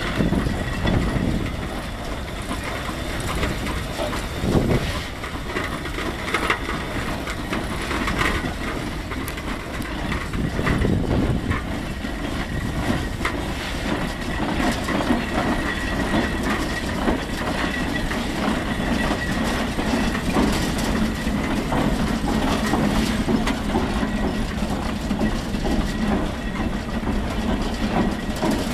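110 HP Case steam traction engine driving past, a steady mechanical clatter of its gearing and big steel wheels with many small knocks, and a thin steady high tone running through it.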